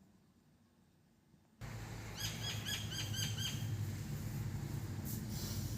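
A bird calling a quick run of about eight short chirps over a steady background noise, starting about two seconds in.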